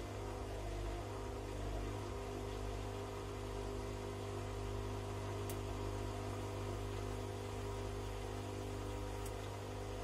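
Bosch Classixx 6 front-loading washing machine in its wash phase: the motor hums steadily as the drum turns a pillow through sudsy water.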